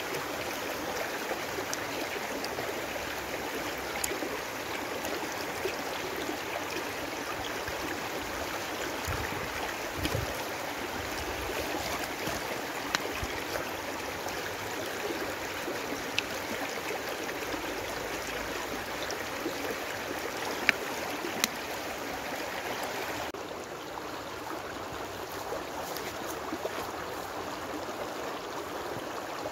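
Shallow rocky stream rushing steadily over stones, with a few sharp clicks over it. Near the end it drops to a slightly quieter, duller rush.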